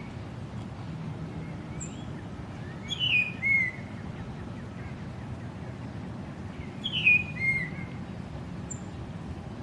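A high whistled call presented as a bald eagle's, sounded twice about four seconds apart. Each call is a short falling note that drops in two steps, over a steady low background hum.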